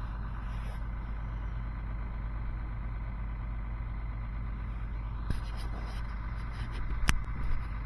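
Steady low mechanical rumble, with a sharp click near the end.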